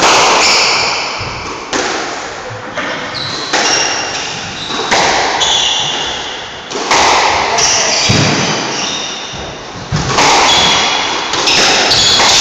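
Squash ball struck by rackets and hitting the court walls, each sharp thwack ringing out in the echoing court, about one to two seconds apart, with shoes squeaking on the wooden floor.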